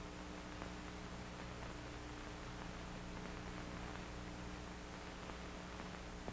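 Faint steady hiss and low hum of an old film soundtrack between lines of narration, with no other sound.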